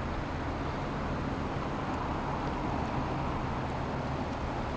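Steady rushing of shallow river current, an even noise with no breaks or sudden sounds.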